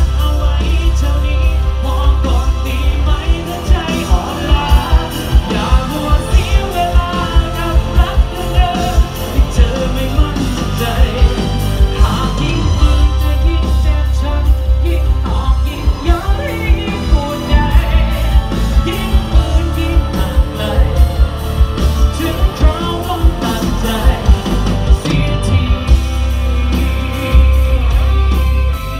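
Live pop-rock band playing loud through a concert PA, with a male lead singer over electric guitar, heavy bass and a steady drum beat.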